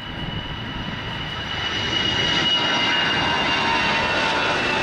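Twin-engine jet airliner at takeoff thrust as it rotates and lifts off, growing louder over the first two seconds, with a high engine whine that dips slightly in pitch as it passes.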